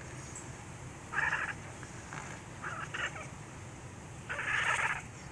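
Domestic cat chittering in three short bursts, the last one the longest.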